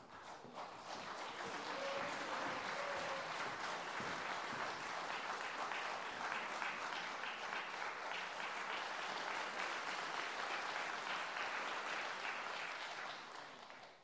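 Audience applauding, building up over the first couple of seconds, holding steady, and dying away just before the end.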